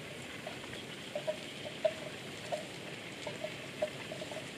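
Quiet outdoor pasture ambience: a steady faint hiss with short, irregular chirps scattered throughout.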